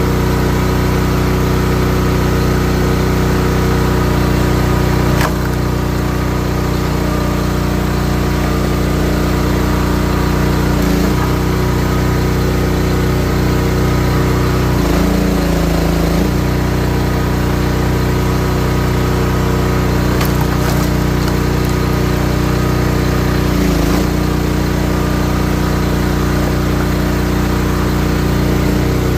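Wolfe Ridge 28-ton high-output log splitter's engine running steadily, its note changing briefly a few times and a sharp click about five seconds in.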